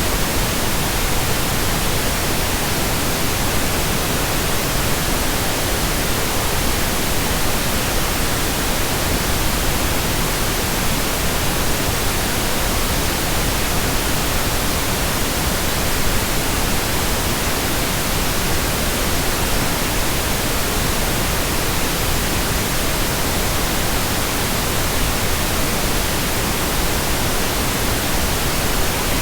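Steady pink noise: an even, unchanging hiss spread across all pitches, with no rhythm, tones or breaks.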